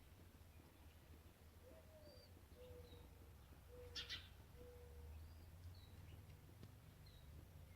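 Faint bird calls: a low four-note cooing song, the first note sliding and the next three held steady, over short high chirps from small birds, with one louder, sharper call about four seconds in.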